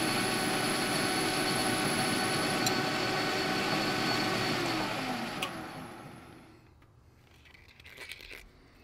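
Metal lathe running steadily with a brass workpiece spinning in its chuck. About five seconds in it is switched off and winds down with a falling whine, and near the end there are a few knocks and rustles as hands handle the chuck.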